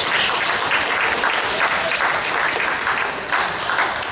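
Spectators clapping at a basketball game: dense, steady applause.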